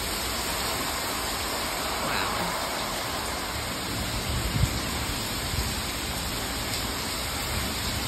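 Heavy rain pouring down in a steady hiss on a pool deck and patio cover, with strong gusting wind; a brief low thump about halfway through.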